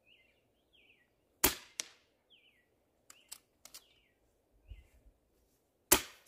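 Two shots from a Hatsan Flash QE .25 PCP air rifle firing slugs, about four and a half seconds apart. Each shot is followed about a third of a second later by a fainter smack of the slug striking the target downrange. Short falling bird chirps and a few light clicks come between the shots.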